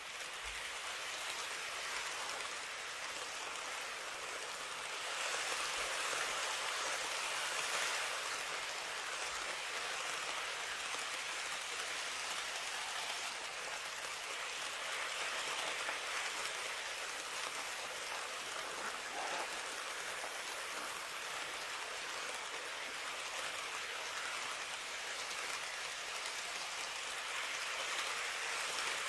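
KATO N-gauge model trains (103 series and 205 series electric multiple unit sets) running on the track: a steady rushing hiss of small wheels on rails and the motor cars, swelling a little about five seconds in.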